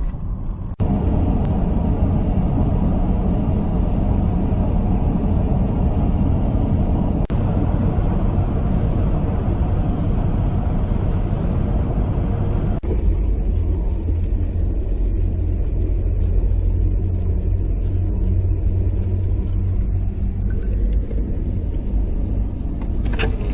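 Steady low rumble of a car driving, with road and engine noise and no distinct events; the sound shifts abruptly about a second in and again about halfway through.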